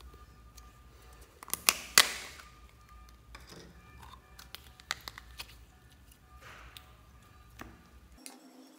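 Small plastic slime tub being handled and its snap lid pried open, with a few sharp plastic clicks about two seconds in, the loudest. Lighter clicks and handling noise follow as the slime is tipped out.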